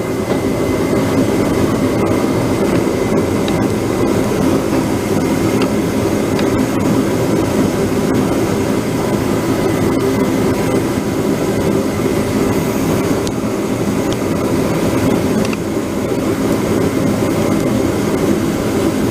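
A machine running steadily: an even, loud noise with a faint high whine that holds without a break.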